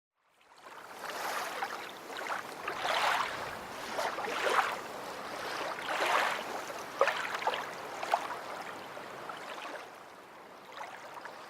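Water lapping in slow swells about every second and a half, with small splashes, fading in at the start and easing off near the end.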